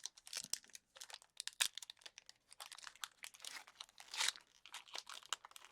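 Foil Pokémon booster pack wrapper being torn open and crinkled by hand: a dense run of sharp, irregular crackles and rips, with a longer tearing sound about four seconds in.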